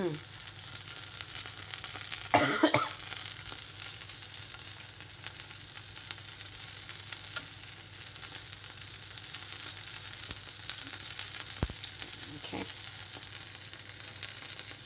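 Floured Atlantic cod fillet frying in hot oil in a pan, a steady sizzle with fine crackling. A brief louder noise about two and a half seconds in.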